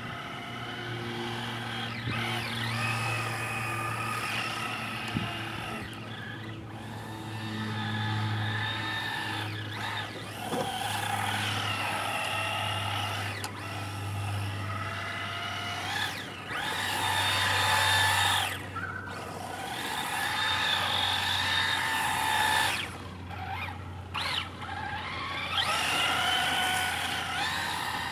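Traxxas Rally VXL radio-controlled car's brushless electric motor whining, rising and falling in pitch as the car speeds up and slows down again and again, with brief breaks where the throttle is let off. A steady low hum runs underneath.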